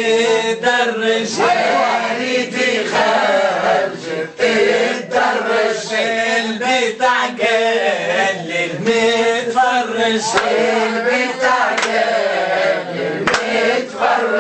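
A mixed group of men and women singing a Tunisian folk song together in unison, keeping time with hand claps.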